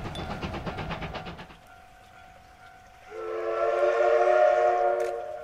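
Rapid, even rhythm of the C12 steam train running, which cuts off about one and a half seconds in. About three seconds in, the C12 steam locomotive's whistle sounds one long chord blast of about two seconds, the departure signal at the station.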